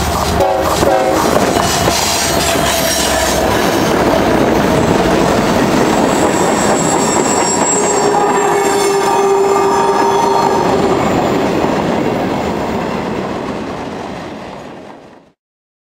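CSX freight train passing close by: GE diesel locomotives rumbling at the start, then a long string of freight cars rolling past with steady wheel-on-rail noise and high wheel squeal in the middle. The noise fades as the cars go by and cuts off suddenly near the end.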